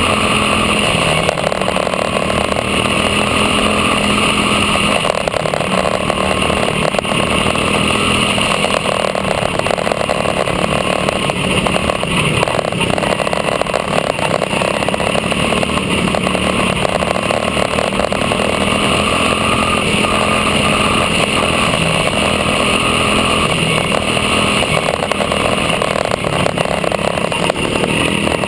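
Quarter midget race car's small single-cylinder engine running at racing speed, heard up close from on board the car, loud and steady with only slight rises and falls through the turns.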